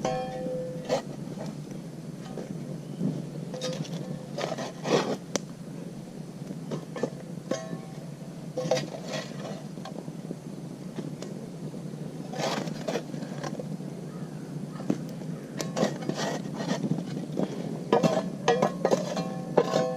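Metal shovel scraping and scooping campfire coals, with irregular scrapes and clinks, some briefly ringing.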